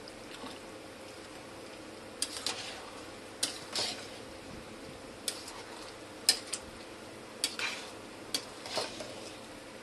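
Long metal spoon stirring rice biryani in a stainless steel pot: a series of sharp clinks and short scrapes against the pot, starting about two seconds in.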